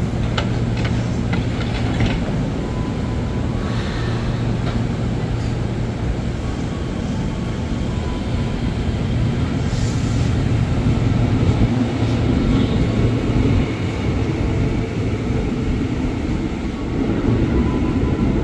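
Electric commuter train at a station platform: several short clunks in the first two seconds as its doors shut, then a steady low hum of the train's motors and running noise.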